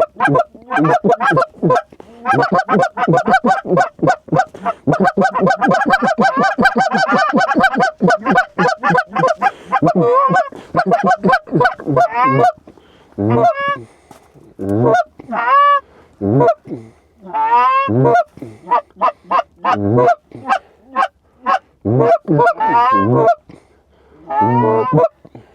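Rapid goose honks and clucks, a dense, almost continuous run for the first ten seconds, then coming in separate bursts.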